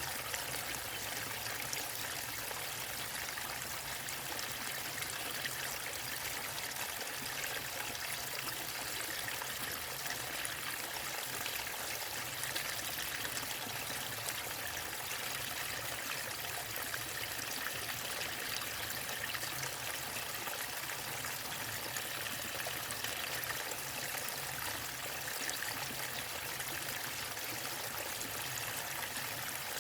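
Water rushing steadily over a small waterfall into a stream, with an even splashing and gurgling that does not change.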